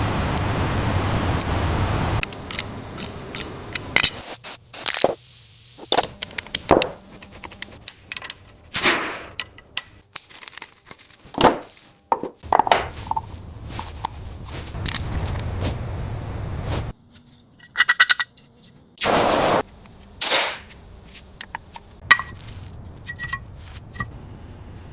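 Workshop sounds of a motorbike teardown: a run of metal knocks, clicks and scrapes from tools and parts. A loud hiss runs for the first two seconds, and a short burst of hiss comes about nineteen seconds in.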